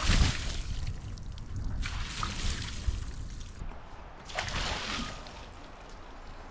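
Water splashed onto freshly sawn elm slabs in three short rushing bursts about two seconds apart, wetting the wood to bring out the grain. Wind rumbles on the microphone throughout.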